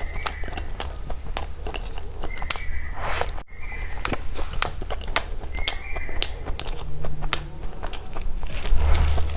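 Close-miked chewing of big mouthfuls of rice and curry, with wet mouth clicks and smacks.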